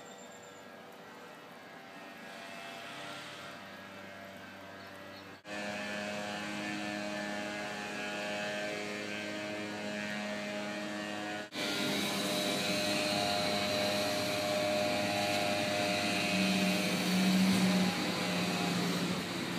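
Electric water pump running steadily with a humming drone as it circulates sealant filler through a leaking PVC pipe rig. The hum jumps louder twice, abruptly.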